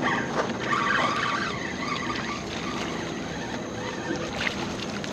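Spinning fishing reel being worked while a hooked fish bends the rod, an uneven chatter strongest in the first two seconds, over steady water lapping at a kayak.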